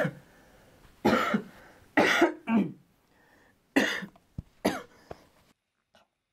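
A young man coughing hard, about six harsh coughs coming in fits, some in quick pairs, stopping about five seconds in.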